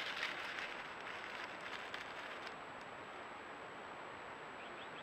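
An Egyptian mongoose moving through dry leaf litter: a crackling rustle with small clicks that fades out about two and a half seconds in, leaving a steady hiss.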